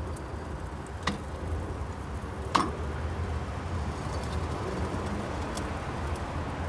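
Bradley smoke generator's bisquette feed running with a low steady hum as it advances the wood bisquettes toward the burner plate. Two sharp clicks come about a second in and about two and a half seconds in.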